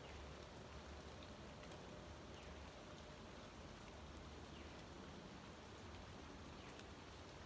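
Faint, steady light rain falling, an even hiss with no other clear sound.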